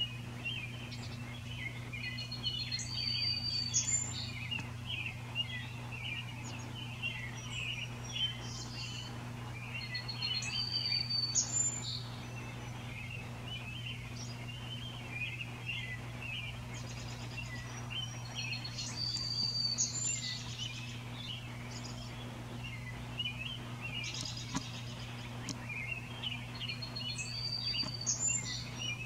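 Birds calling: a dense chatter of short chirps, and a bird repeating a short phrase of high notes about every eight seconds. A steady low hum runs underneath.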